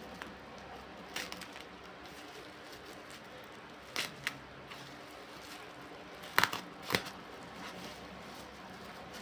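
Packaging being handled during an unboxing: a few short clicks, crinkles and rustles, the loudest cluster about two-thirds of the way through, over a steady low background hum.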